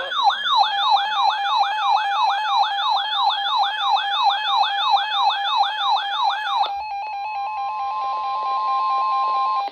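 Weather alert radio sounding a rapid siren-like warble that sweeps up and down about two and a half times a second for nearly seven seconds. It then switches to a steady single-pitch alarm tone, the NOAA Weather Radio 1050 Hz warning tone that heralds a new tornado warning.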